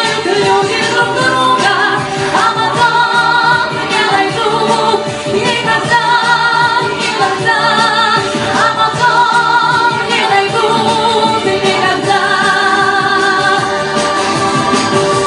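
Music: a pop song's accompaniment with a female voice singing long, wavering notes with vibrato.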